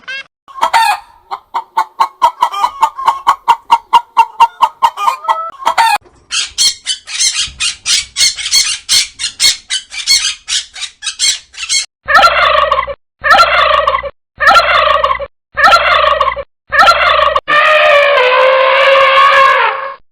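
A series of different animal calls one after another: a quick pulsing call for about five seconds, then a faster, higher rattling call for about six seconds, then five short separate calls and a longer held call near the end.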